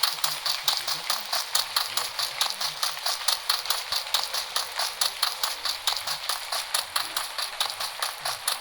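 Rapid, steady run of sharp clicks or taps, about five or six a second.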